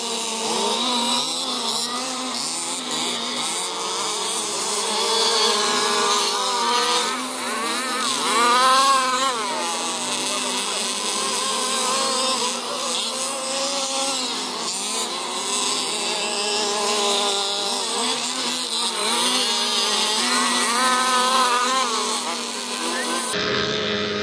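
Several 1/5-scale petrol RC cars (Baja-type buggies and trucks) racing together, their small two-stroke engines buzzing and revving up and down in overlapping rising and falling whines.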